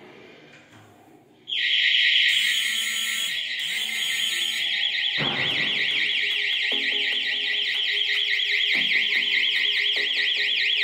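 Plug-in wireless burglar-alarm siren sounding a loud, fast-warbling electronic wail that starts abruptly about a second and a half in and holds steady. It is the intrusion warning set off by a door sensor when the door is opened, programmed to sound for ten seconds.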